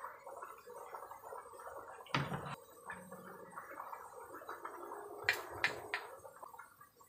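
Cooking oil glugging and gurgling as it is poured from a plastic bottle into a pot of raw chicken. There is a sharp knock about two seconds in and three quick sharp clicks a little past five seconds.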